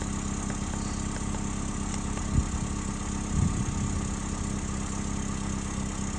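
Toyota 1ZZ-FE 1.8-litre inline-four, freshly rebuilt, idling steadily a little high, with a slight exhaust leak. Two brief low bumps sound about halfway through.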